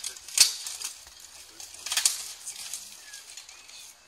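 Steel blows in an armoured longsword fight, swords striking plate armour and each other: one sharp clang about half a second in, then a quick clatter of several hits about two seconds in.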